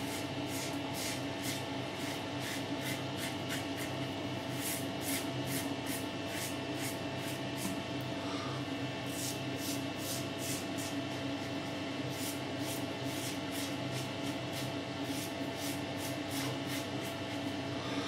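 Short, quick scraping strokes of a Fatip Piccolo open-comb double-edge safety razor shaving lathered cheek and neck stubble, a few strokes a second with brief pauses, over a steady low hum.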